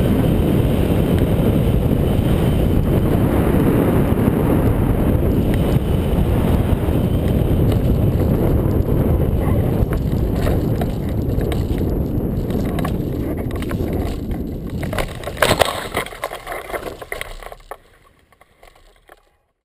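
Airflow rushing over the microphone of a hang glider on final approach. About fifteen seconds in come a few sharp knocks and rustles as the glider touches down in grass, then the rush dies away.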